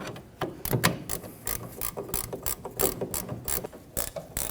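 Hand ratchet wrench clicking in a steady run of quick strokes as it tightens brake caliper bolts.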